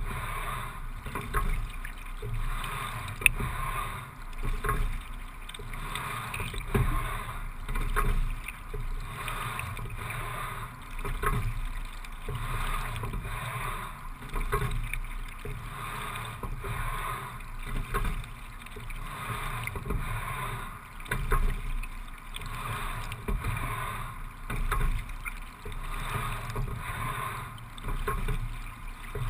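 Single scull being rowed at a steady low rate of about 17-18 strokes a minute: water rushing along the hull and blades swells and fades with each stroke, about every three and a half seconds, with a short knock now and then in the stroke.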